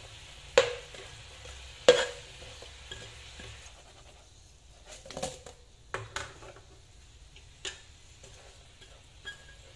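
Metal spatula knocking and scraping against a nonstick frying pan while fried tuna pieces are turned in a fish-sauce glaze that sizzles lightly. Two loud knocks in the first two seconds, then scattered lighter clicks as the sizzle dies down.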